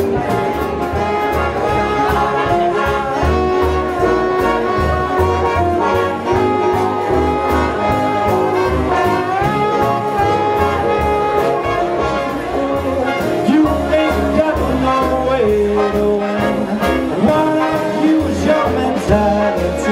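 Live big band playing 1940s swing: trumpets, trombones and saxophones in held and moving lines over a steady drum beat and walking bass.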